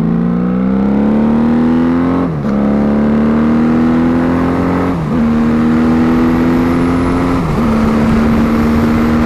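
Honda Magna V4 motorcycle engine pulling under acceleration, its pitch climbing, then shifting up three times about two and a half seconds apart; each shift is a brief dip in revs before the engine settles into a steady cruise.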